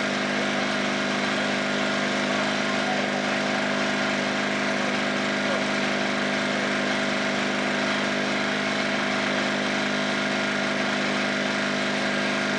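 An engine running steadily at constant speed, an even drone that does not change.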